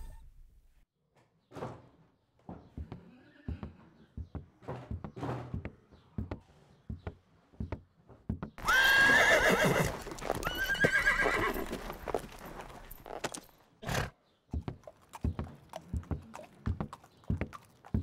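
A horse whinnies twice, a loud call about halfway through and a second right after it, between stretches of scattered footsteps and hoof clops.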